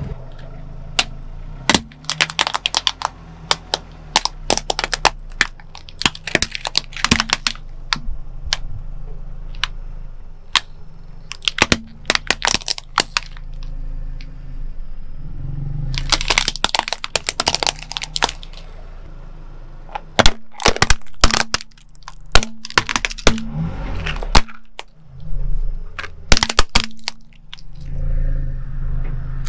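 A car tyre crushing plastic toy cars and then brittle plastic objects on concrete: clusters of rapid sharp cracks and crunches of breaking plastic, over the low steady hum of the car's engine.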